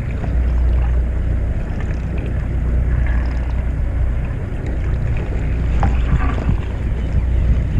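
A fishing boat's engine running steadily at low revs, a deep even hum, with wind buffeting the microphone.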